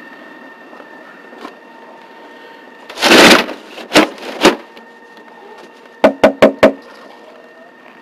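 Aluminium roller shutter over a window being shoved up by hand, its pull strap having snapped: a loud rattle of the slats about three seconds in, two sharp clacks, then four quick sharp knocks about halfway through the second half.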